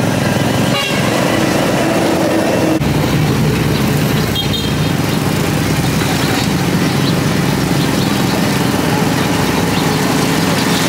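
Busy street traffic: motorbike and car engines running steadily in a dense wash of street noise, with an abrupt shift in the background about three seconds in.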